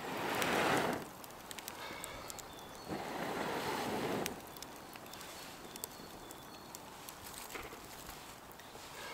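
Two long breaths blown into a newly lit campfire of twigs, one at the start and another about three seconds in. Small crackles and snaps from the burning kindling run on between them.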